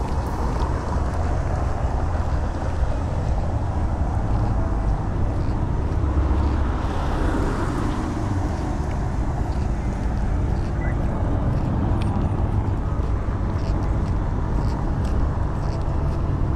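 City street traffic: a steady rumble of cars going by, with one louder car passing about seven seconds in.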